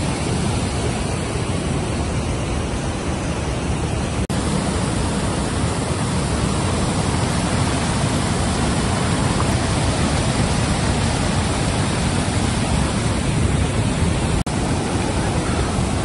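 Large waterfall in flood: a broad sheet of muddy water pouring over stepped rock ledges into churning pools, giving a loud, steady rushing noise. It is broken twice by a momentary gap, about four seconds in and near the end.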